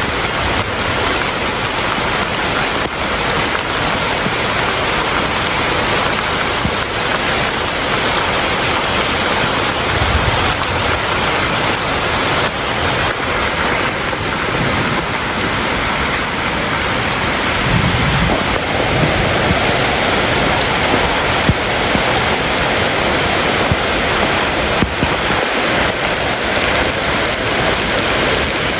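Steady heavy rainfall, a dense even hiss of drops on surfaces, with a couple of brief low rumbles about ten and eighteen seconds in.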